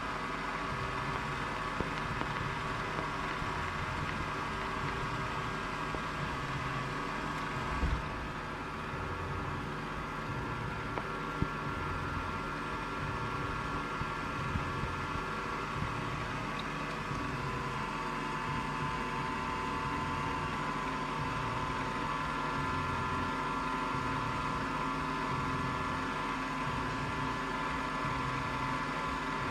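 Milling machine motor running steadily, with a slow low pulsing and a few light clicks; its whine shifts slightly about seventeen seconds in.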